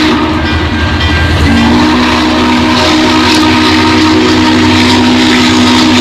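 Norfolk & Western 611's Hancock long-bell three-chime steam whistle blowing a long, steady chord. It falters briefly in the first second and a half, then sounds again in full.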